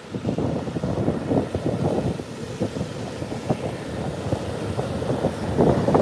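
Wind buffeting a phone's microphone: an uneven, gusty low rumble.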